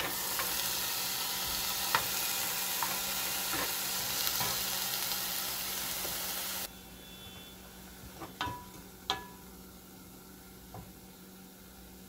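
Chopped white onions sizzling in a hot non-stick saucepan, dry-fried before any oil goes in, while a wooden spoon stirs them and now and then knocks against the pan. The sizzle drops suddenly about two-thirds of the way through, leaving a fainter hiss and a few sharp spoon knocks.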